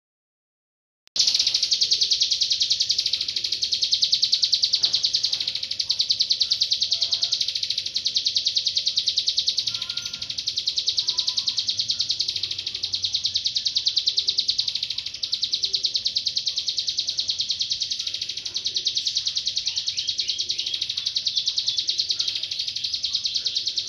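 Ciblek gunung, a prinia, singing a continuous, very rapid, high-pitched chattering trill that starts about a second in.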